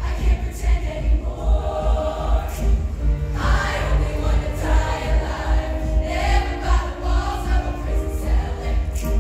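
Show choir singing in full voice over a live backing band with a steady bass-and-drum beat; the massed voices grow stronger about a third of the way in.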